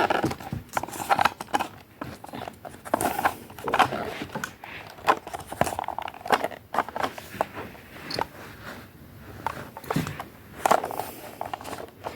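Foam darts being pushed into a Nerf blaster magazine: fast, irregular plastic clicks, scrapes and rustling of handling.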